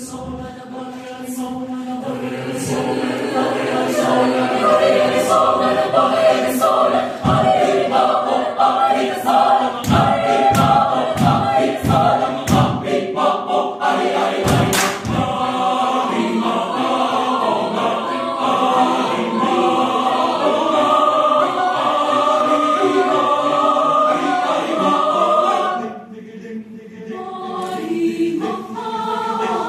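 Mixed choir singing in parts, swelling from soft to full early on. From about 7 to 15 seconds in, a series of sharp percussive hits cuts through the singing, and near the end the choir drops suddenly quieter before building again.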